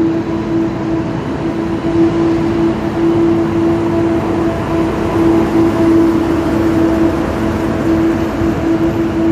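Class 721 diesel-electric locomotive hauling a passenger train slowly past at close range: a steady engine drone with overtones over the rumble of the locomotive and the coaches rolling by.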